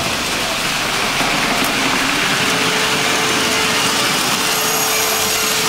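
Electric toy trains running on three-rail tinplate track: a steady rolling rattle and whir of metal wheels and motors, with a thin steady whine coming in about halfway through.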